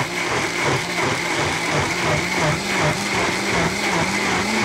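High-powered countertop blender running at full speed, pureeing frozen mango, peaches, banana and kale with water. The motor's pitch wobbles in an even rhythm about twice a second as the thick mix churns.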